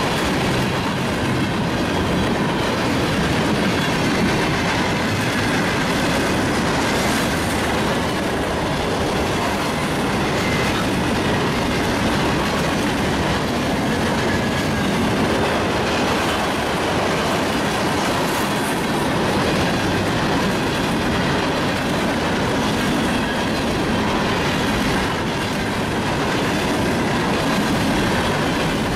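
A mixed freight train's cars rolling past: a steady clatter of steel wheels on the rails, with a faint thin squeal from the wheels.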